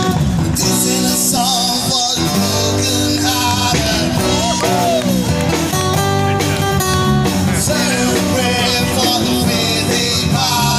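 Live street band playing, amplified: strummed acoustic guitars with a bending lead melody into a hand-held microphone.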